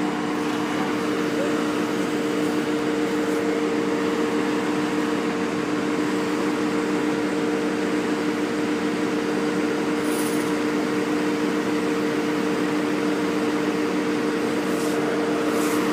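Road-crew paving machinery running, a steady mechanical hum with two constant tones over an even rumbling noise.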